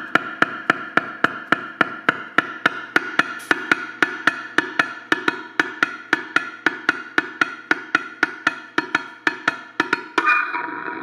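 A piezo contact microphone hung over a loudspeaker cone in a physical-feedback loop: rapid, even clicking taps at about four to five a second over a steady ringing feedback tone. About ten seconds in the clicking gives way to a denser, continuous buzzing feedback tone.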